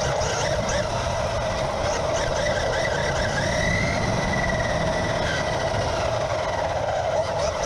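Traxxas UDR radio-controlled truck running, its electric motor and drivetrain whining over a steady low rumble, with the whine rising slightly about three and a half seconds in.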